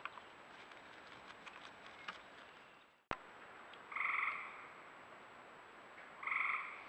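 A frog calling twice at night: two short calls about two seconds apart, after a single sharp click about three seconds in.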